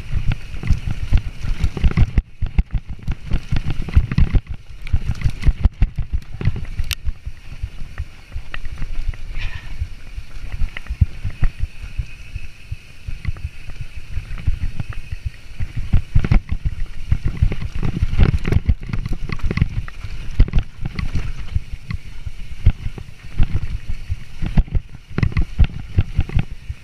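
Mountain bike ridden fast down a rooty dirt trail: a constant clatter of knocks and rattles from the bike over roots and small rocks, with wind rumbling on the microphone.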